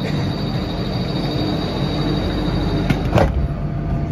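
Changi Airport Skytrain, a rubber-tyred Mitsubishi Crystal Mover people mover, running as it pulls out of the station, heard from inside the car: a steady rumble with a high motor whine, and a short knock about three seconds in.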